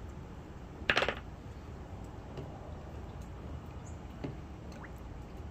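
A short clatter about a second in, as a hand tool is set down on the work table, then a faint tap just after four seconds.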